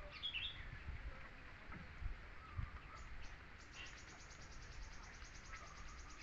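Outdoor ambience: birds chirping, then a high, rapid, evenly pulsed trill from about halfway through, with a few soft low knocks.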